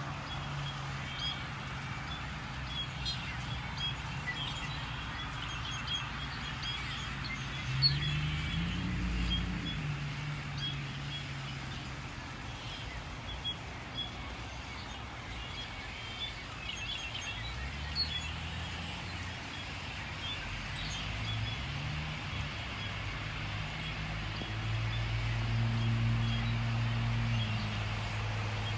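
Many small birds chirping and calling continuously over a steady outdoor hum, as a murmuration flock flies overhead. Passing vehicle engines rise and fall now and then, and a louder engine hum builds near the end.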